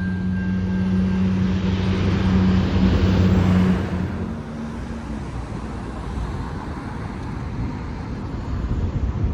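A motor vehicle passing close by: engine hum and tyre noise build to a peak about three seconds in, then fade into steady street traffic.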